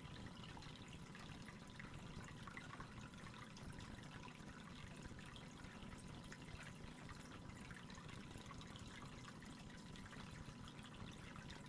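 Faint trickling and dripping of aquarium water, a steady patter of tiny splashes with a faint steady tone underneath.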